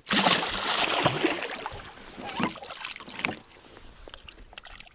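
Water splashing and sloshing at a boat. It starts suddenly, is loudest for the first second and a half, then dies down with scattered knocks.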